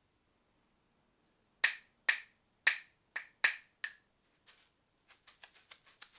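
Hand percussion: six sharp knocks with a short ring, about two a second, then from about four seconds in a jingling percussion instrument shaken quickly, about seven shakes a second.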